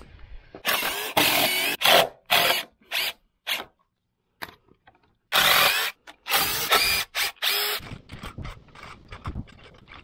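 DeWalt 20V XR cordless impact driver driving a fastener into a sawn timber beam, in repeated short trigger bursts. There are two runs, one starting about a second in and another about five seconds in, each breaking into shorter bursts toward its end.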